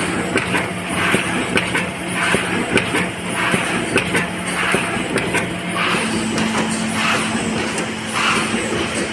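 TMP-390 automatic cover machine running through its cycle: a repeated rhythmic swish-and-clack about one and a half times a second over a steady motor hum, which steps slightly higher in pitch about six seconds in.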